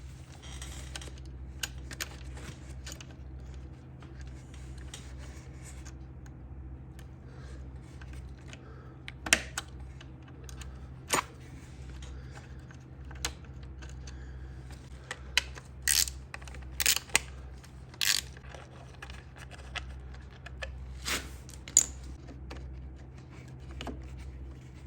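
Scattered small metallic clicks and taps from hand tools working on a dirt bike's rear brake clevis and pin, over a steady low hum; the clicks come thickest and loudest in the second half.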